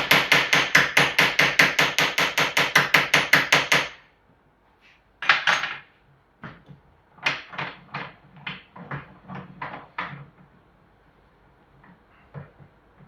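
Rapid, even hammer taps on a punch against the seal head cover of a rear motorcycle shock absorber, about six a second, to work the cover loose. They stop about four seconds in, and a few scattered lighter knocks and clicks follow.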